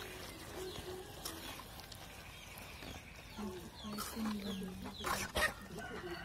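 A hen making soft, low clucking calls, once near the start and again about three and a half seconds in. A few faint clinks of a metal slotted spoon stirring in an aluminium pan come near the end.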